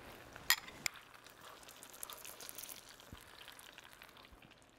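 A metal spoon clinks twice against a ceramic plate about half a second in, then rice-paper-wrapped haddock steaks sizzle faintly as they fry in oil in a skillet, with small crackles.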